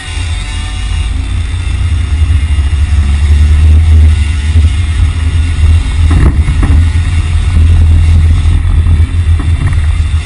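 Vehicle and road noise with a heavy, steady low rumble, growing louder a couple of seconds in, and a short harsher burst about six seconds in.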